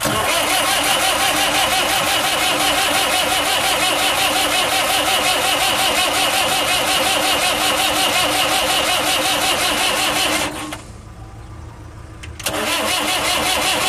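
Starter motor cranking the Saviem SG-2's replacement diesel engine, which turns over steadily but does not catch. Cranking stops about ten seconds in and starts again about two seconds later. The owner suspects a badly timed injection pump.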